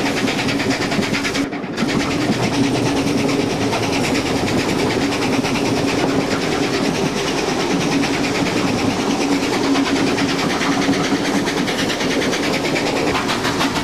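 Steam-hauled passenger train passing on a climbing grade: carriage wheels rolling and clattering over the rails, with the locomotive working hard up the grade. There is a brief break in the sound about a second and a half in.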